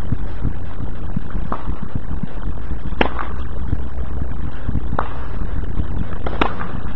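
Tennis ball struck with racquets and bouncing on a hard court during a rally: four sharp pops about every one and a half to two seconds, over a steady low rumble.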